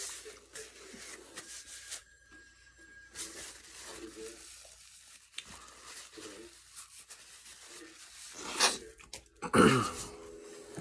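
Paper napkin rustling and crinkling as hands are wiped, with two louder sounds near the end, the second falling in pitch.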